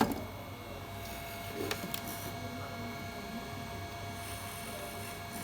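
Sharp click of a battery connector being snapped onto a homemade 12 V fishing-shocker inverter, with a second, smaller click about two seconds in, over a steady electrical hum with a faint high tone.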